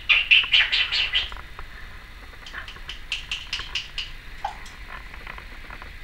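Timneh African grey parrot making a quick run of short, high clicking chirps for about a second, then a second run of sharper clicks a couple of seconds later.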